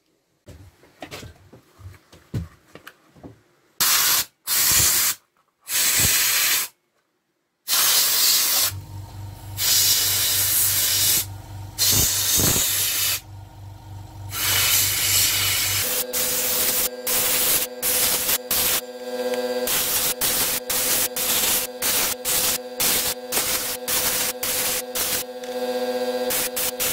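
Soda blasting gun spraying baking soda with compressed air onto a plastic vent: a few short blasts, then long continuous hissing blasts, then rapid stuttering bursts from about two-thirds in, with a steady hum underneath.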